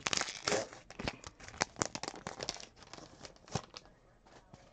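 Topps Allen & Ginter baseball cards being flipped through by hand: a quick run of flicks and snaps of card against card, thinning out over the last second or so.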